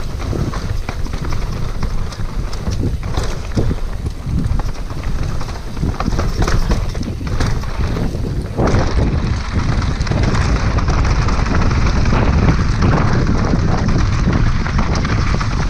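Mountain bike descending a rough downhill trail: wind buffets the microphone while tyres roll over dirt and rock, with frequent short knocks and rattles from the bike. About nine seconds in, the sound turns into a steadier, fuller rush.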